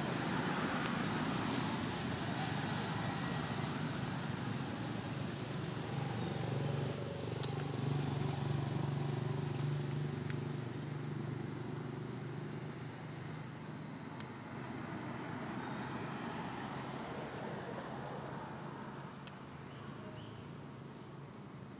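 Motor vehicle engine running nearby with a low, steady rumble that grows louder about eight to ten seconds in, then slowly fades away.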